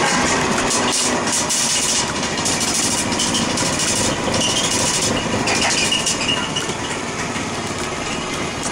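Pipe-cleaning test rig running: a steady mechanical whirr of the machine drawing a cable through a large pipe, with hissy scraping and faint squeals from the brush inside. It gets slightly quieter about two-thirds of the way through.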